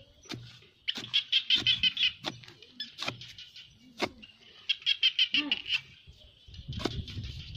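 A bird's rapid chattering call, two quick runs of high chirps, with a few sharp knocks as a bamboo tube is jabbed into the soil to dig a hole.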